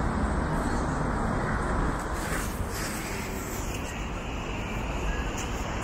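Steady city street ambience, mostly the rumble of road traffic, slightly quieter after about two seconds.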